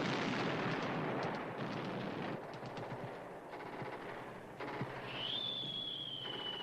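Bursts of machine-gun fire, densest for the first two seconds, then thinning to scattered shots. About five seconds in, a high steady whistle-like tone starts and sinks slowly in pitch.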